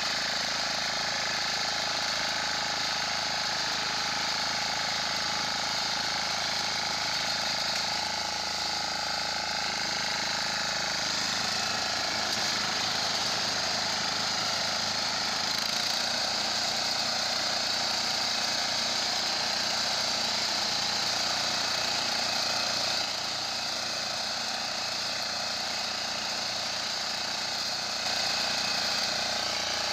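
Small engine of a walk-behind power reaper running steadily while the machine cuts standing crop, with a few abrupt shifts in level.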